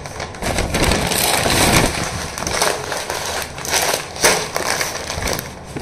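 Rustling and crinkling of grocery packaging being handled, with irregular sharp crackles.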